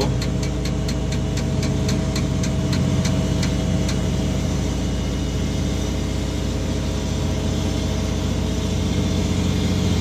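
Manitex 50128 boom truck's diesel engine running steadily, heard from inside the crane cab as the crane swings a load. A quick regular ticking, about three or four a second, runs over it and dies away about four seconds in.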